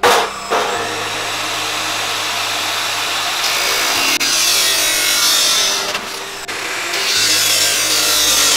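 Electric chop saw running and cutting through PVC pipe, the motor humming steadily. The cutting turns harsher and louder twice as the blade bites into the plastic, once about halfway through and again near the end.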